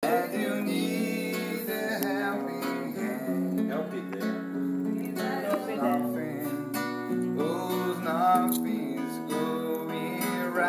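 Acoustic guitar (violão) strummed steadily, with a voice wavering over it in places.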